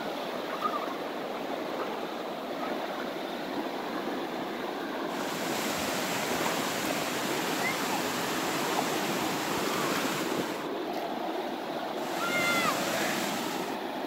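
Water from a small waterfall spilling over a rocky river ledge into a shallow pool: a steady rushing and splashing that turns brighter and slightly louder about five seconds in.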